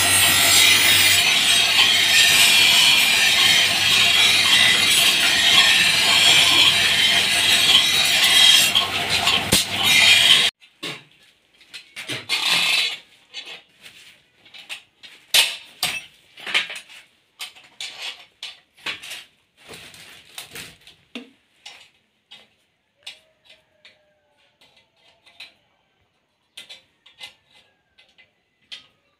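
Steel sword blade ground against an abrasive grinding wheel: a loud, steady grinding that stops abruptly about ten seconds in. After that come scattered light metallic clicks and taps as a brass hilt is fitted onto a blade by hand.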